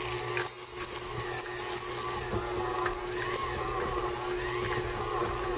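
KitchenAid Classic Plus stand mixer running at stir speed with its flat beater, a steady motor hum. Chocolate chips poured into the stainless steel bowl clatter against the beater and bowl over the first couple of seconds.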